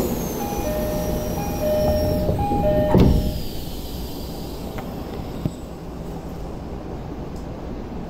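Train door-closing chime, three two-tone pings, then the sliding doors of a Tokyo Metro 16000 series car shut with a thud about three seconds in, followed by a low steady rumble.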